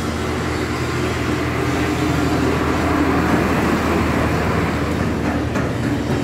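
Bending press machine running steadily with a low hum and a broad whirring noise that swells a little in the middle.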